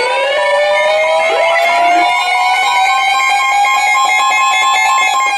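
Electronic music: several pitched tones sweep upward together for about four seconds and hold, over a fast pulsing higher tone, then begin to fall near the end.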